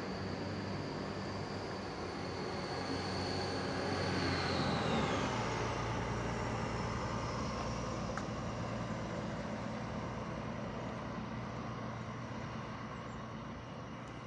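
Diesel railcar running, a low engine rumble under a high whine that slides down in pitch about four to five seconds in.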